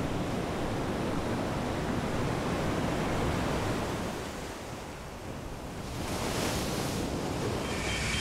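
Heavy breaking surf and wind: a steady rush of waves with wind buffeting the microphone. It eases about halfway through and rises again with a brighter hiss of spray.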